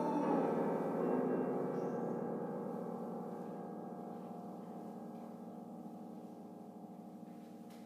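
A struck metal percussion instrument, gong-like, ringing on with several steady tones and slowly dying away.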